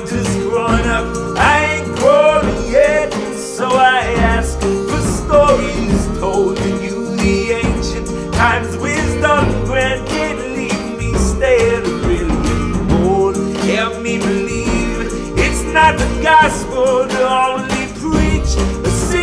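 Background music: a song with a singing voice over steady instrumental backing.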